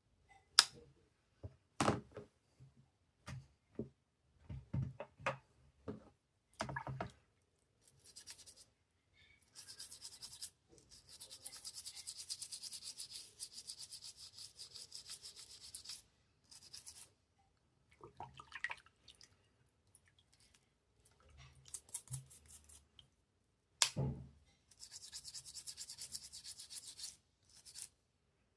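A small stiff brush scrubbing a Swiss Army knife in quick back-and-forth strokes, in two spells: a long one from about eight seconds in and a shorter one near the end. Scattered clicks and knocks of the knife being handled come before and between the spells, the loudest about a second in and again about two-thirds of the way through.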